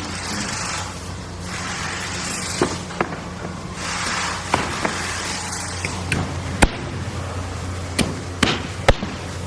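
Construction-site drilling machinery: a steady low engine hum under three rushing bursts of drilling noise, each about a second long, in the first half, then scattered sharp knocks and clanks.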